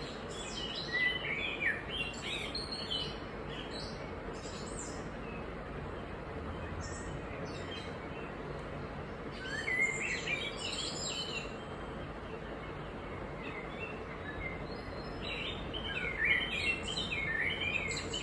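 Birds chirping in short runs of quick, high calls, about a second in, around ten seconds, and again near the end, over a steady background hiss.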